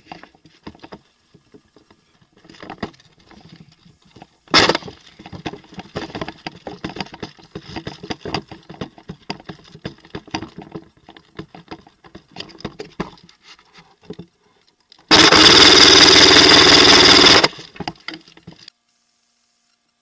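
Airsoft electric gun firing one full-auto burst of about two and a half seconds, its gearbox whirring under rapid shots, about fifteen seconds in. Before it come scattered clicks, a sharp knock and gear rustle.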